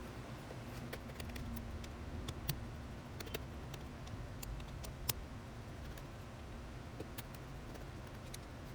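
Scattered small clicks and taps of mechanical keyboard parts being handled during assembly, with a few sharper clicks, over a low steady hum.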